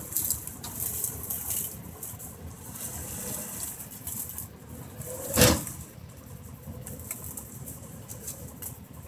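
Vehicle engine running, heard as a rough, noisy phone recording, with one sudden loud thump about five and a half seconds in.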